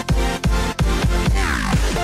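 Electronic intro music with a steady, heavy bass beat and falling synth sweeps, one of them about a second and a half in.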